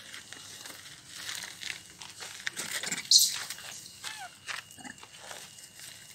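Thin plastic bag crinkling and rustling in hand, with scattered crunches of footsteps on gravel. A sharp, hissy rustle about three seconds in is the loudest moment.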